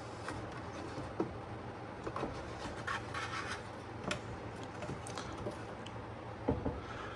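Faint rubbing and scraping with a few light clicks and taps: a long PCIe card being handled and lined up in an expansion slot of a 2019 Mac Pro.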